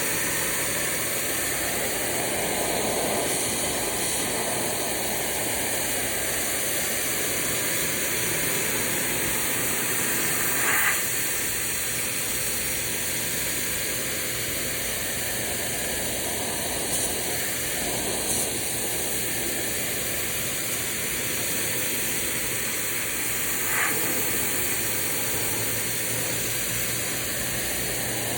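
High-pressure water jet from a Kranzle K1122TST pressure washer spraying a fence: a steady hiss whose tone swells and fades slowly as the spray sweeps across the surface, with a couple of brief sharp ticks.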